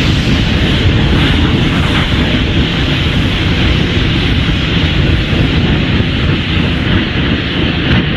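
Giant-monster sound effect: a loud, steady rushing blast like jet thrust, with no clear pitch.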